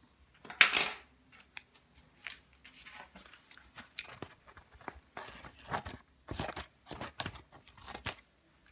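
An old forged-steel pruning shear snipping through a sheet of printed paper: a run of short, crisp cuts, the loudest about a second in, with more close together in the second half.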